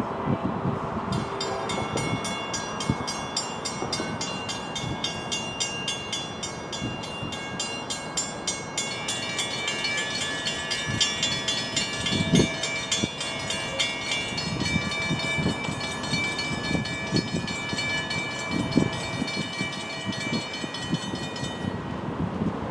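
NJ Transit train at the station, with railroad warning bells ringing rapidly and steadily over the rumble of the train. A second bell joins about nine seconds in, and the ringing stops shortly before the end.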